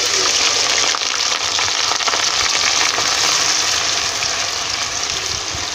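Sliced onions sizzling loudly in hot mustard oil in a clay pot, stirred with a wooden spatula. The sizzle starts suddenly as the onions hit the oil, then holds steady, easing slightly toward the end.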